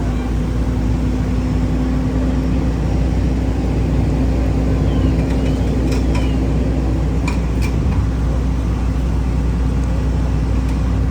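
Fire apparatus diesel engine running steadily at the scene: a constant low drone with a steady hum. A few faint clicks come through about halfway in.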